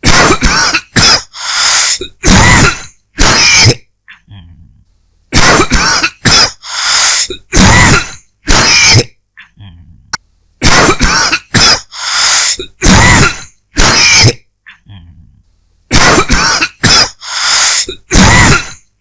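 A person dry coughing in four fits of five or six harsh coughs each, one fit starting about every five seconds, with short quiet pauses between fits.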